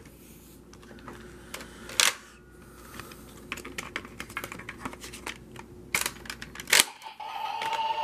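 Plastic clicks and snaps from handling a DX Dragvisor Zwei toy gun: a louder click about two seconds in, a run of small clicks, and two sharp snaps near the end. Right after them the toy's electronic sound effect starts as a steady beeping tone.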